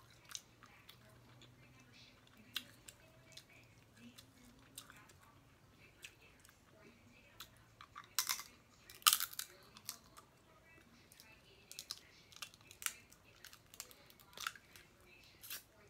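Snow crab leg shells cracking and snapping as they are eaten, with chewing: scattered sharp cracks and clicks, the two loudest about eight and nine seconds in.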